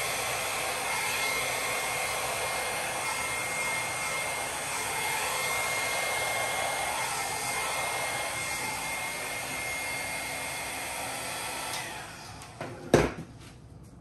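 Handheld hair dryer blowing steadily with a thin whine, pushing poured acrylic paint across a canvas. It switches off near the end and winds down, followed by a single loud knock as it is set down on the table.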